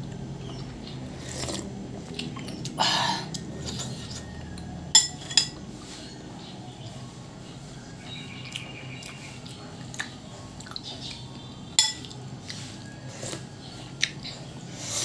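Metal spoon and fork clinking against a ceramic bowl while eating, a few sharp clinks spread out, with a short noisy sound about three seconds in, over a low steady hum.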